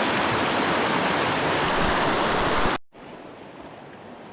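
Fast-flowing river water rushing loudly with steady white-noise hiss, from high spring runoff. About three seconds in it cuts off abruptly, then continues much quieter as a softer steady rush of water.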